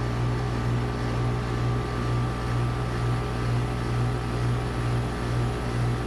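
Carrier heat pump outdoor unit running with a steady hum.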